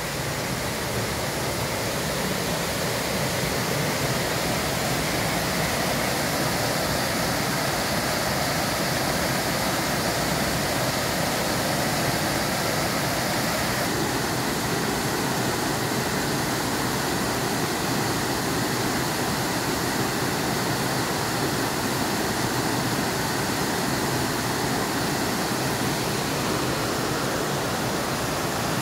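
Steady rush of running water from the creek's falls and cascades; its tone shifts a little about halfway through.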